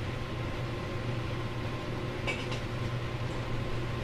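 Interior sound of a JR Kyushu 813 series electric multiple unit: a steady low hum and rumble with a faint steady high tone. A couple of brief sharp clicks come about two seconds in.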